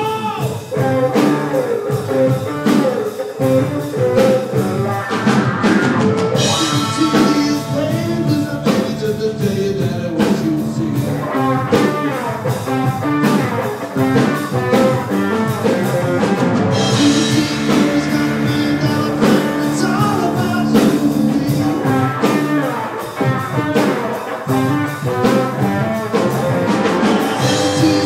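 Live band playing a song on electric guitar, electric bass and a drum kit.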